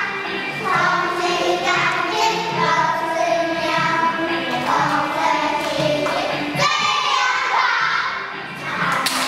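A group of children singing a song together over instrumental accompaniment, with a short noisy hit about seven seconds in.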